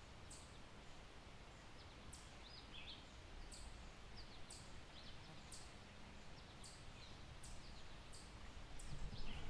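Faint outdoor ambience: a steady low rumble with short, high bird chirps about once a second.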